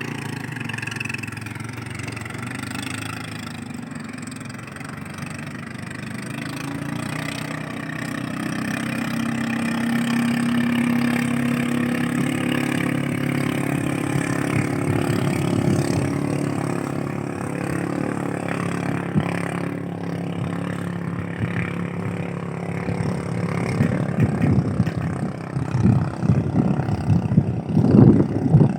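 A small fishing boat's engine running steadily, picking up speed about a third of the way through. Near the end, wind buffets the microphone in gusts.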